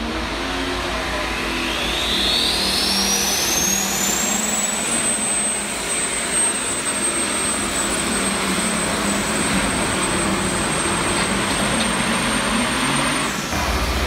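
Pulling tractor's engine running hard under load as it drags a weight-transfer sled, with a high whine that climbs over the first few seconds, holds, then stops abruptly near the end.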